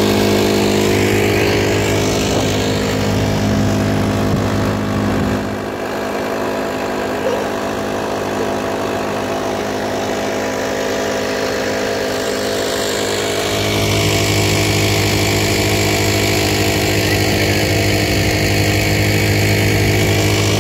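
Small outboard motor running steadily with the boat under way, a continuous engine hum. The low part of the hum drops back for several seconds in the middle and returns at full strength about 14 seconds in.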